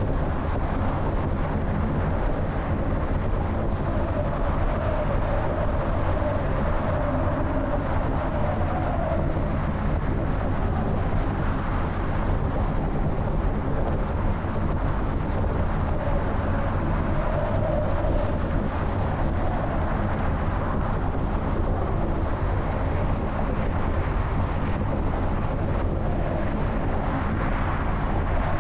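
A car driving along the road, heard from its hood: steady wind rushing over the microphone over a low rumble of tyres and engine.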